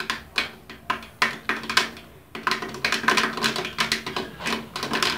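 Live click beetles jumping as they heat in a covered frying pan, ticking against the pan and its glass lid. Scattered single clicks at first, then from about halfway a rapid, dense clatter.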